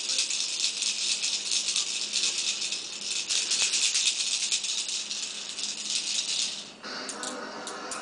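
A handheld plastic toy shaker rattled quickly and continuously, stopping abruptly about seven seconds in.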